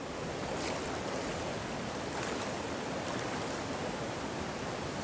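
Steady rushing of a shallow, rocky mountain stream flowing over boulders.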